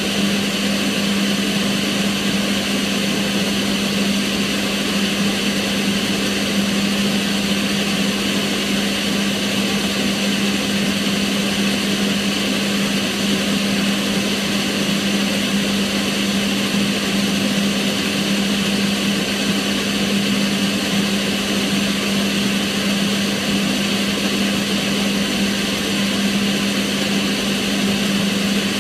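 Kitchen range hood extractor fan running steadily: an even rush of air with a constant low hum.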